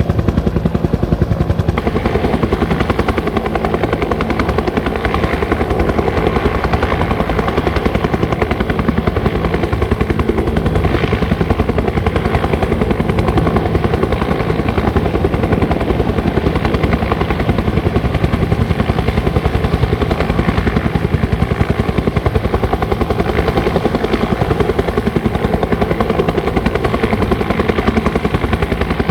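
Bell 205 helicopter running: the rapid, steady beat of its two-blade main rotor over the turboshaft engine's noise, unchanging throughout.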